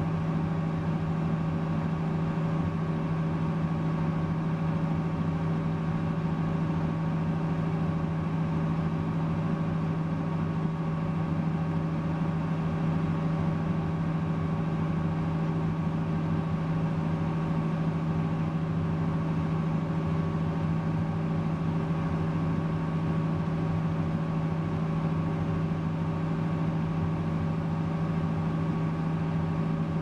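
Heavy diesel tractor engine of a Case IH Quad Track 485 running steadily under load, heard from inside its cab, a constant low drone with a strong steady hum.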